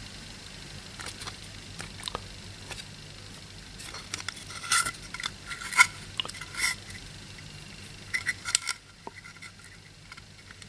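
Small clicks and light metallic taps from handling small electronic parts and tools on a workbench, busiest in the middle and again a little later, over a low steady hum.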